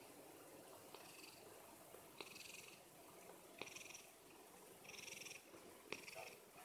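Domestic cat purring faintly, in soft phases a little over a second apart, with a few light clicks.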